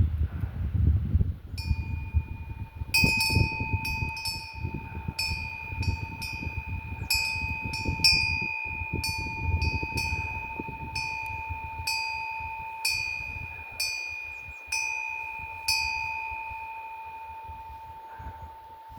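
Korean wind bell (pungyeong), a small metal bell with a hanging clapper, knocked by the wind: about twenty light strikes at uneven intervals begin a second and a half in, and its two steady ringing tones hang on and slowly fade after the last strike.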